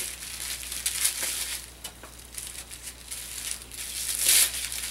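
Paper wrapping crinkling and rustling as a small gift is handled and unwrapped by hand, in irregular crackles that grow loudest near the end.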